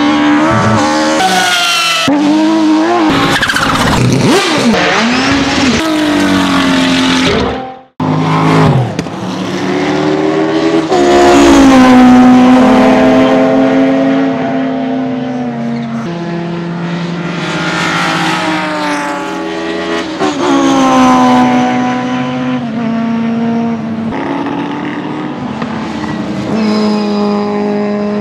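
For the first eight seconds a car engine revs hard, with tyre squeal. After a sudden cut, the 1993 Mercedes-Benz 190E Evo 2 DTM's 2.5-litre straight-four racing engine is heard at full throttle on track. Its note climbs, drops at each gear change and climbs again as the car drives past.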